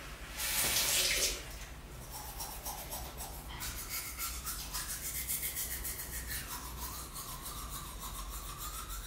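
Toothbrush scrubbing teeth in quick, even strokes. About half a second in, the tap runs briefly into the sink as the brush is wetted.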